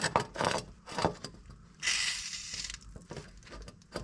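Knocks and clicks of metal engine parts being handled. At about two seconds, a short hiss of under a second from an aerosol spray, which fits penetrating oil being sprayed on a part to soak.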